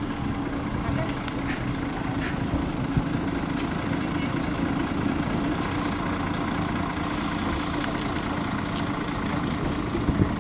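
Diesel engine of a city bus idling steadily, a low rumble with a constant hum, and a few faint clicks over it.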